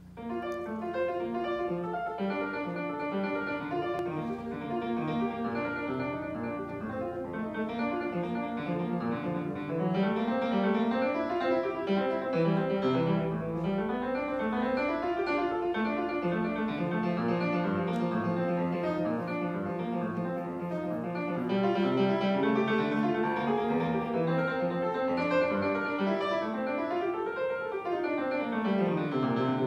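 Grand piano played solo, the piece starting right at the beginning with a steady flow of notes, and a fast run up the keyboard and back down near the end.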